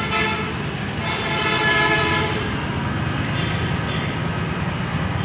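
Steady hum of a diesel injection pump test bench running, with a horn-like tone sounding over it from about one to two and a half seconds in.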